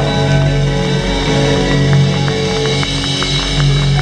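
Live band playing loud, with electric guitars over bass and drums; the drum strokes come in regularly in the second half.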